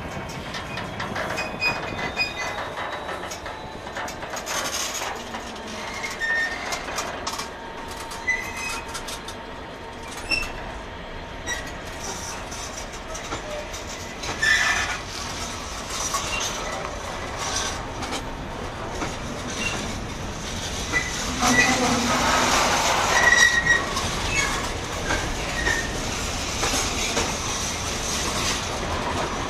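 Freightliner bogie coal hopper wagons (HHA type) rolling steadily past: a continuous rumble of wheels on rail with frequent clanks and clicks over the joints, and short, scattered wheel squeals, louder for a few seconds about two-thirds of the way through.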